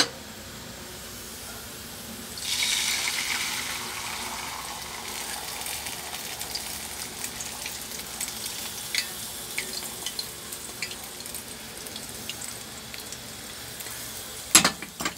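Beaten egg poured into hot cooking oil in a frying pan, hitting with a loud sizzle about two and a half seconds in that eases into a steady sizzle with light crackles. A sharp knock near the end.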